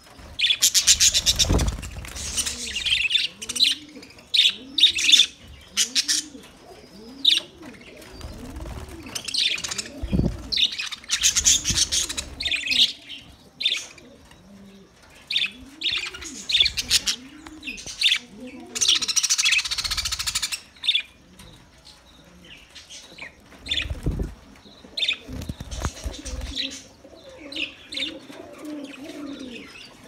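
A flock of budgerigars chirping and chattering, with a brief burst of wing flutter about two-thirds of the way in. Underneath, a low cooing call repeats roughly once every second.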